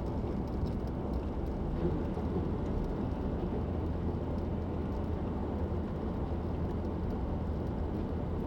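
Car driving steadily along a highway: a constant low rumble of engine and tyre noise with no changes.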